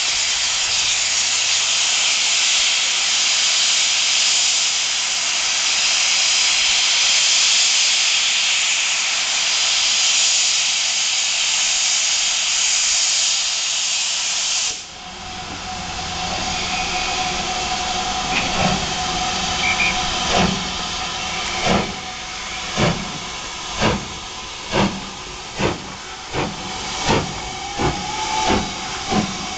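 Southern Railway U class 2-6-0 steam locomotive: a loud steady hiss of steam blowing off at its safety valves cuts off suddenly about halfway through. Then the exhaust chuffs begin, slow at first and coming quicker as it starts away with its freight train, over the hiss of steam from its open cylinder drain cocks.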